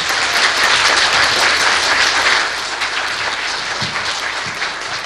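Audience applauding in a hall: a dense patter of many hands clapping, loudest in the first couple of seconds and slowly thinning toward the end.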